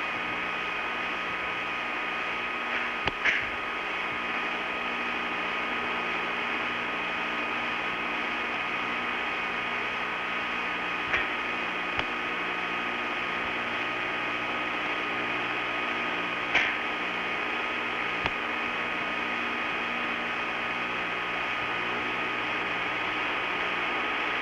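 Steady hum and hiss with a few steady tones in it, broken by about five brief faint clicks.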